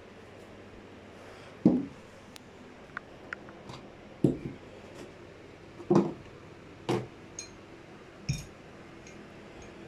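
Scattered knocks and thuds, about five louder ones a second or so apart, with small clicks and clinks between them: household objects, plugs and cables being handled and moved about on a carpeted floor.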